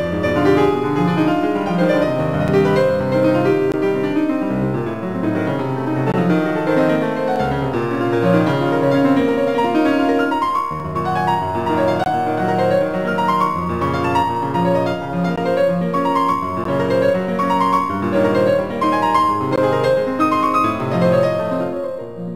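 Piano music, a flowing piece of many quick notes.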